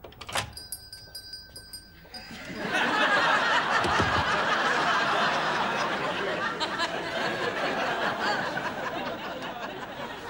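A shop-door bell gives one sharp ring that dies away over about two seconds, then studio audience laughter swells and carries on, easing slightly toward the end.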